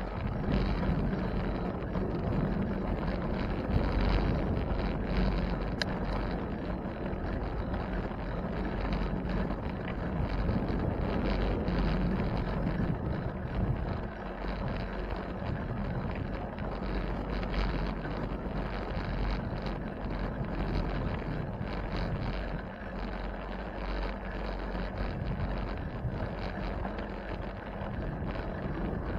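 Wind blowing across the microphone of a camera carried on a moving bicycle: a steady rush with a deep rumble underneath.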